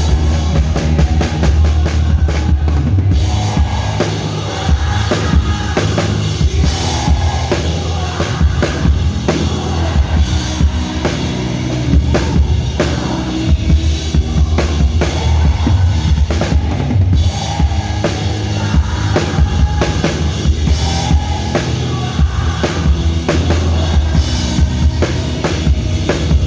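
Live band music led by a drum kit playing a steady groove, with bass drum, snare and cymbals, over a sustained low bass.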